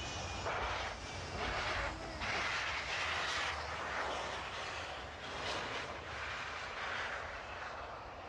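Jet engine noise from a FedEx Boeing 757 skidding down the runway in a crash landing: a loud rushing noise that swells and eases several times.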